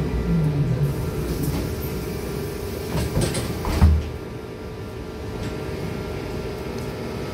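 Trolleybus doors opening at a stop: a light clatter, then a heavy thump about four seconds in as the door leaves reach their stops, over the vehicle's steady electrical hum.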